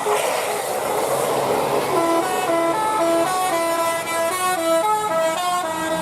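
Tour bus's telolet musical horn playing a quick tune of short stepped notes, starting about two seconds in, over a steady rush of passing-vehicle noise.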